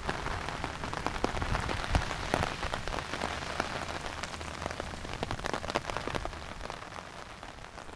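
Heavy rain mixed with hail pelting pavement and grass: a steady hiss of rain dotted with many sharp ticks of stones striking. It eases slightly near the end.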